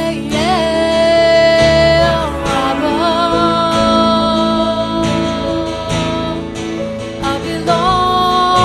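Slow worship music with strummed acoustic guitar and long held melody notes that slide from one pitch to the next.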